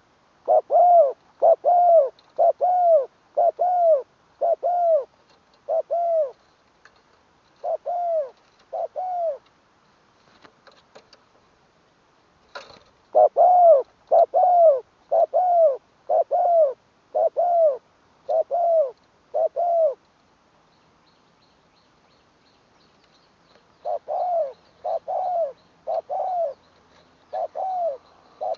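Spotted dove cooing: three runs of about eight evenly spaced, arched coos each, with pauses between the runs. A single sharp click comes in the gap between the first and second runs.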